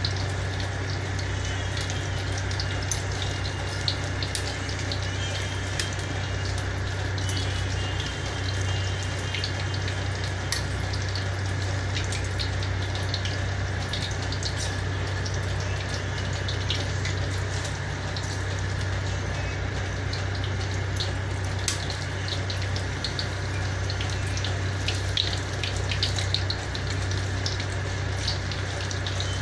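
Vegetable fritters deep-frying in a wok of hot oil: a steady sizzle with small pops and crackles throughout, over a constant low hum.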